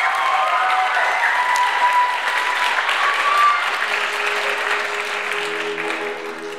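Theatre audience applauding and cheering at the end of a song, the clapping thinning out over the last few seconds. A soft held musical chord comes in about four seconds in.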